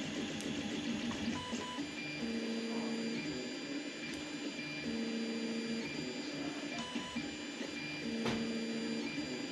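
Tevo Tornado 3D printer printing, its stepper motors whining in steady pitches that come and go every two to three seconds as the head changes moves, over the steady hiss of its cooling fans.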